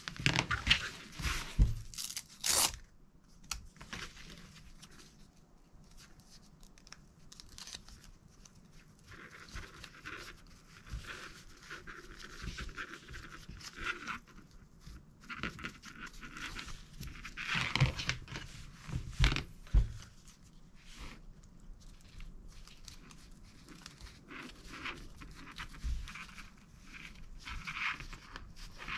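Nylon webbing and hook-and-loop fastener being handled: irregular rustling and scraping, with louder ripping sounds of hook-and-loop pulled apart about a second in and again about two-thirds of the way through.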